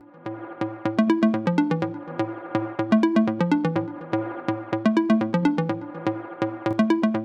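Electronic background music with a steady beat and a repeating bass line.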